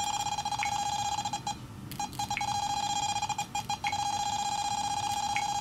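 EMF meter sounding its alarm: a steady high-pitched electronic tone with a short break about a second and a half in and a faint chirp roughly once a second, as it registers the smartphone's emissions.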